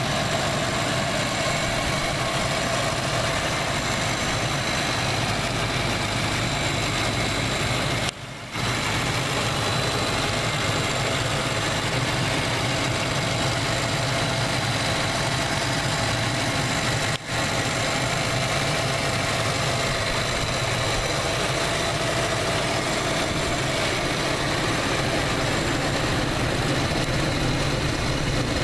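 Car engine idling steadily, heard close up in the open engine bay, with two brief dropouts in the sound about 8 and 17 seconds in.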